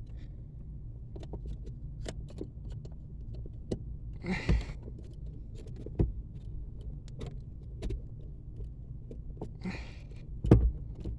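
Scattered small clicks, taps and rattles of hands working a plastic bushing and brake pedal position switch onto the brake pedal arm under a dashboard, with two short rustling bursts and a sharper knock near the end, over a steady low hum.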